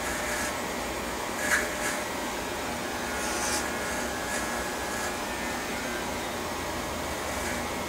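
Corded electric hair clippers buzzing steadily while trimming short hair around the ear, with brief louder rasps about a second and a half in and again around three and a half seconds in.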